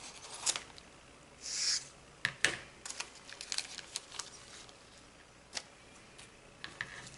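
A model rocket parachute being taken out of its plastic bag and handled: scattered light clicks and taps, with a short crinkling rustle about a second and a half in.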